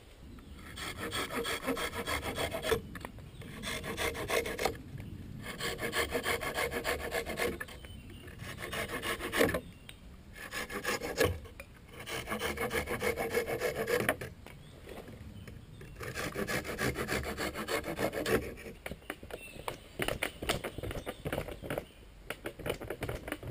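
Hand saw cutting through thin green wooden rods, the bed's cross-slats, as they are trimmed to length: repeated bursts of rapid back-and-forth strokes, each a couple of seconds long, with short pauses between cuts. Near the end, irregular wooden knocks.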